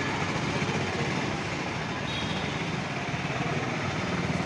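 Steady road traffic noise, with vehicle engines running and a low rumble.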